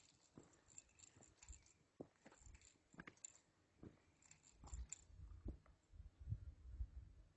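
Near silence, with faint scattered clicks and, from about four and a half seconds in, low rumbling bumps.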